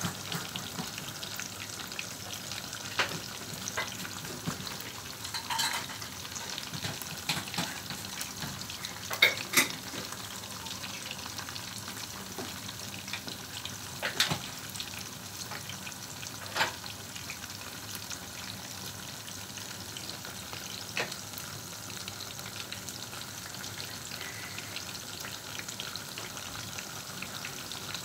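Chicken pieces frying in hot oil with dried red chillies and curry leaves: a steady sizzle with an occasional sharp pop or crackle.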